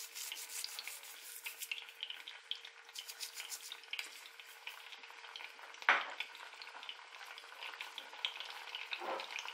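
Piquillo peppers frying gently in a little oil over low heat: a quiet, crackling sizzle, with one louder pop about six seconds in. A faint steady hum runs underneath.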